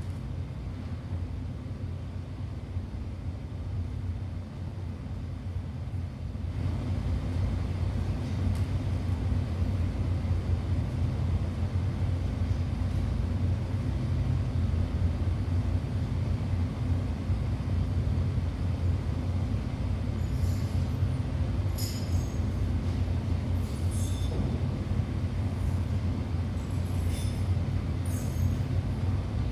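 A steady low rumble, train-like, that grows louder about six seconds in, with scattered light clinks in the second half.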